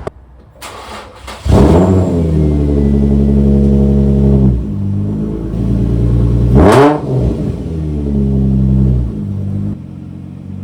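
Car engine revving: a sudden rise in pitch about a second and a half in, held steady at high revs, then a quick blip of the throttle up and back down around the middle.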